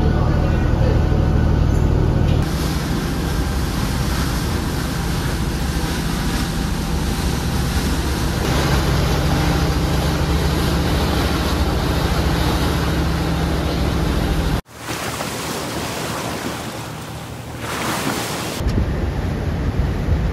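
A boat's engine running with a steady low drone under wind on the microphone and the wash of water. About three-quarters of the way through it cuts off abruptly, leaving wind and sea noise without the engine hum.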